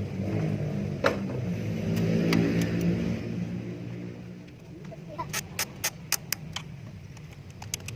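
Nissan Serena engine running with its pitch wavering up and down, then dying away about four seconds in. A quick run of sharp clicks follows near the end.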